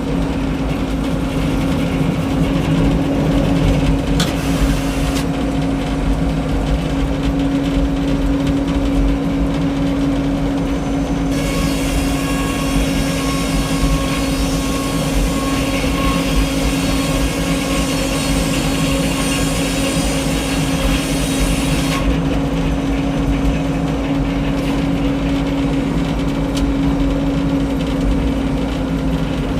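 Frick 01-C circular sawmill running steadily under engine power. From about 11 to 22 seconds in, the circular blade cuts through a log, adding a high, ringing saw noise over the drone.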